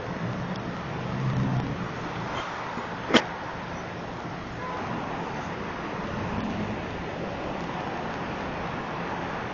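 Steady outdoor background noise, a hiss and low rumble, with a single sharp click about three seconds in.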